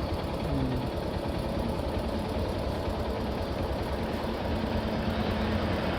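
A motor vehicle's engine idling steadily with a fast, even low rumble.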